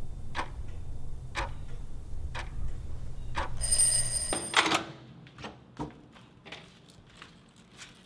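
A clock ticking about once a second over a low hum, then an alarm ringing for under a second a little past three and a half seconds in; the hum cuts off with it, leaving a quiet room with a few faint clicks.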